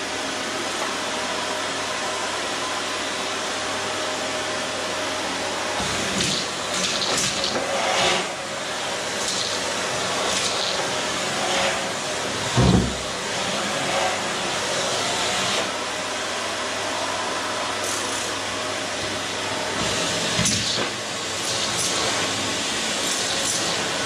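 Electrolux canister vacuum cleaner running steadily, its suction hiss swelling and falling again and again as the nozzle works the floor. A single low thump about halfway through.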